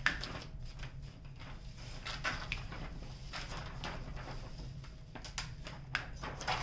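Release paper over a diamond painting canvas's adhesive rustling and crinkling in short, irregular bursts as it is peeled back and handled.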